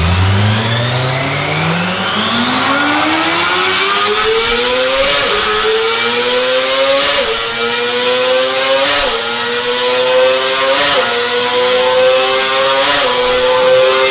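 Kawasaki Ninja ZX-25R's 249 cc inline-four engine, fitted with a Yoshimura exhaust, accelerating hard. Its pitch climbs steeply for about five seconds, then stays high with a brief dip about every two seconds as it shifts up through the gears.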